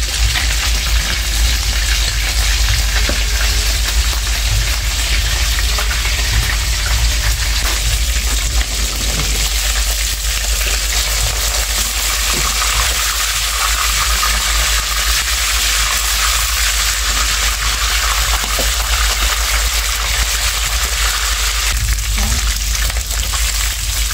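Fish frying in hot oil in a shallow frying pan, a steady crackling sizzle. A steady low rumble runs underneath.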